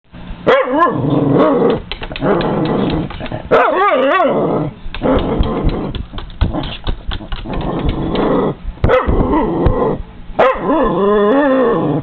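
Cairn terrier growling and barking at birds through a window. Rough growling runs through, broken by sharp barks and three wavering, whining cries: about half a second in, around four seconds in, and near the end.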